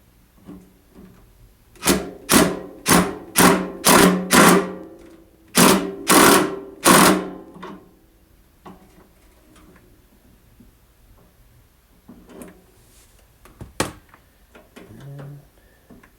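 Ringing metal-on-metal strikes: nine sharp blows about two a second, six and then three after a short pause, each ringing briefly. One more single sharp knock comes near the end.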